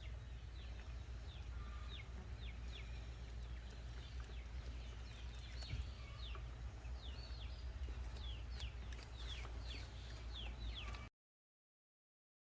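Birds chirping: many short, quick high chirps, each falling in pitch, over a low steady rumble. The sound cuts out to silence near the end.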